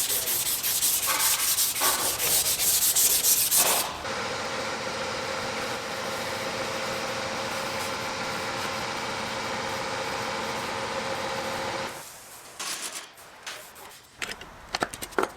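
Sanding a metal door trim piece: about four seconds of rapid scrubbing strokes, then a steady, even whir for about eight seconds, ending in a few light knocks.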